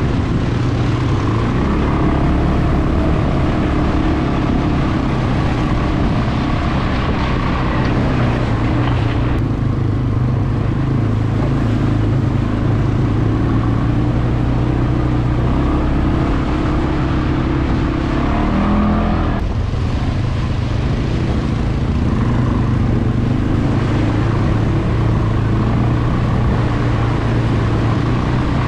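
CFmoto CForce 520 ATV's single-cylinder engine running steadily under way. The revs ease off about a third of the way through, then climb and drop again about two-thirds of the way in.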